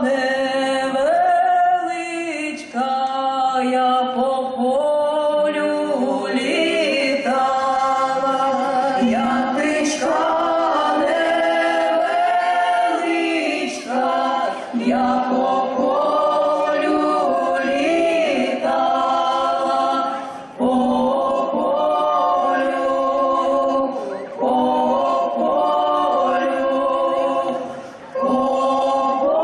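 Folk choir singing a song together in harmony, several voices moving as one, with brief breaks between phrases.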